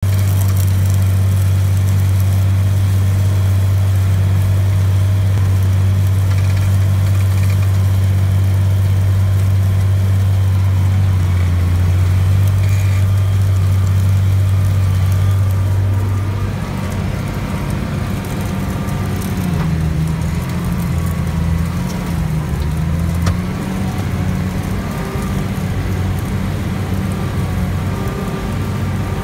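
A tractor's diesel engine runs steadily under ploughing load at about 2,000 rpm, heard from inside the cab. About halfway through, the drone drops a little and grows less even.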